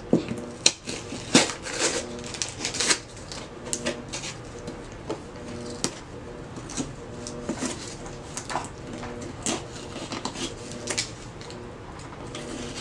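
A cardboard shipping box being opened by hand: irregular taps, scratches and rustles as fingers pick and pull at its sealed flap.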